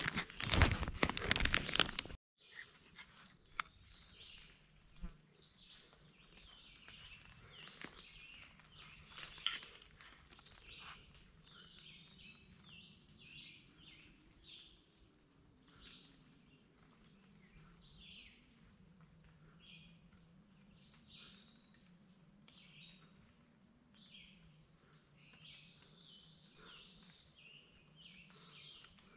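Woodland insect chorus: a steady high-pitched drone with scattered short chirps over it, and a faint low hum that wavers in pitch. For the first two seconds a loud rustling covers it, then cuts off suddenly.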